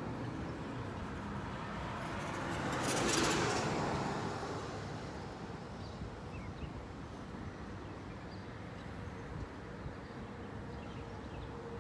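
A car passing on the road: its tyre and engine noise swells to a peak about three seconds in and fades away, over a steady background hum of traffic.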